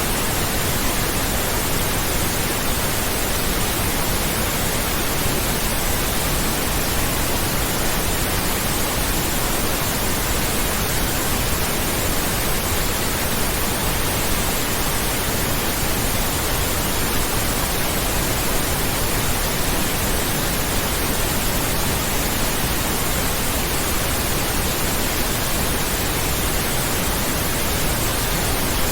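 Steady pink noise: an even hiss spread from low to high pitches, unchanging in level.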